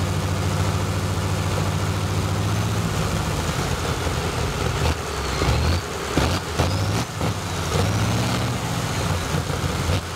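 Curtiss-Wright R-3350 18-cylinder twin-row radial engine running on a test stand without a propeller: a steady deep rumble that turns uneven, with a few sharp pops, from about five seconds in.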